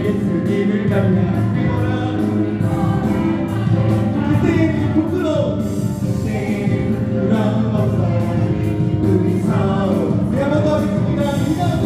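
A large congregation singing a worship song together over musical accompaniment.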